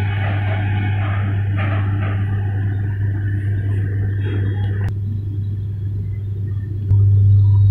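Steady low electrical and machinery hum of a hatchery's running equipment, with fainter higher tones over it that stop suddenly about five seconds in. The hum steps up louder near the end.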